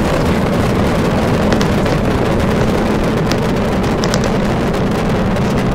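Starship Super Heavy booster's 33 Raptor engines firing during ascent: a steady, dense low rumble with crackle.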